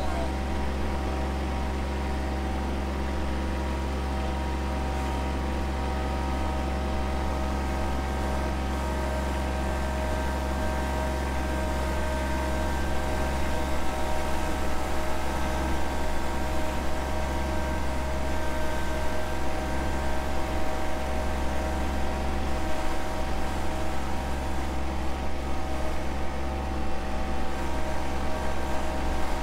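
A John Deere 2025R compact tractor's three-cylinder diesel engine running steadily as the tractor drives across grass. It gets louder and more uneven about halfway through.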